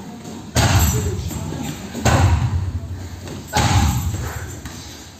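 Three heavy thuds about a second and a half apart, each trailing off in the hall: strikes landing on a hanging heavy bag.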